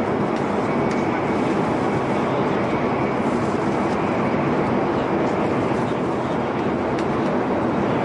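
Metro train running steadily at speed: an even rumble and rush, with a few faint ticks.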